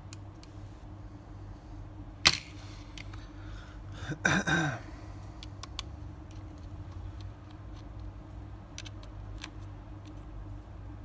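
Small tools and parts being handled during the disassembly of a smartphone. There is a sharp click about two seconds in, then a brief scraping squeak that falls in pitch, and scattered light ticks over a steady low hum.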